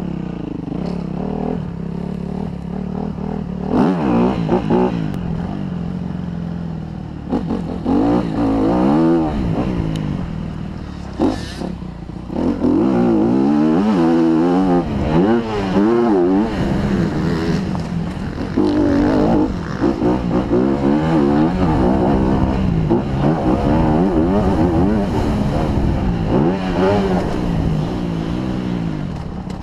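Honda CRF250R's single-cylinder four-stroke engine, heard from on board, revving hard as the motocross bike is ridden. Its pitch rises and falls over and over as the rider opens and closes the throttle, with a few sharp knocks along the way.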